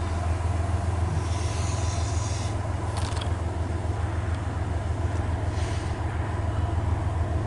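Vehicle engine idling, a steady low hum heard from inside the cabin.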